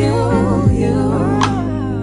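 Background music: a gospel-soul song with a sung vocal line held and wavering over steady bass, between sung lines.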